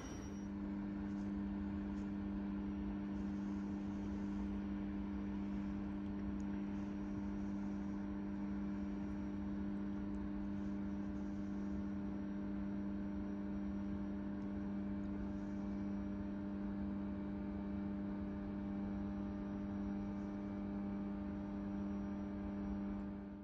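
Škoda Class 362 electric locomotive standing at rest, giving off a steady electrical hum: two strong low tones with fainter ones above, unchanging throughout.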